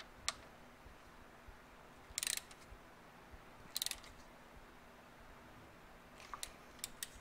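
Ratchet wrench clicking in two short runs, about two and four seconds in, with a few lighter clicks near the end, while tightening a crankshaft nut.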